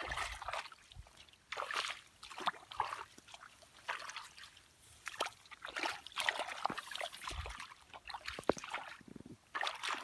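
Shallow water sloshing, splashing and trickling in irregular bursts, as when hands work through it, with a few sharp clicks.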